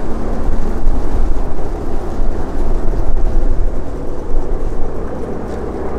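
North American T-28B Trojan's Wright R-1820 Cyclone nine-cylinder radial engine, heard from the ground as the aircraft flies by overhead: a steady low drone.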